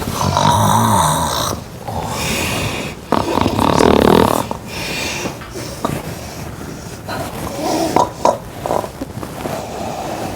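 A person snoring loudly: two long, heavy snores about three seconds apart, then quieter, shorter snorts.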